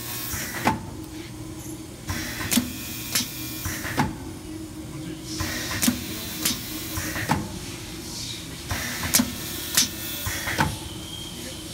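Automatic film packaging machine cycling at 18 bags a minute. Each cycle brings a group of about three sharp mechanical clacks, one group about every three and a half seconds, over a steady hum and stretches of air hiss.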